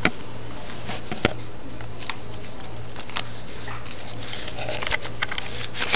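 Handling noise from a camera being carried and moved about: a few sharp knocks, the clearest at the very start and about a second in, with rubbing and fainter clicks over a steady low hum.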